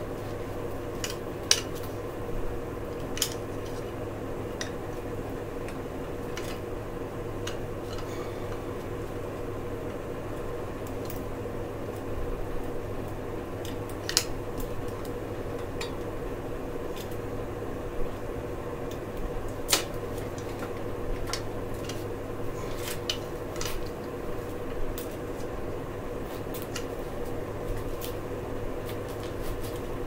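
Light metallic clicks and clinks, scattered irregularly, from hands working on a Diamondback mountain bike's handlebar and controls, over a steady mechanical hum.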